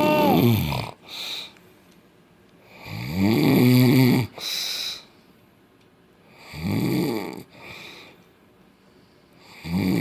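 A man snoring very loudly in his sleep: four snores in a steady rhythm about three seconds apart, each a long rasping snore with a falling pitch, followed by a shorter, breathy puff of air.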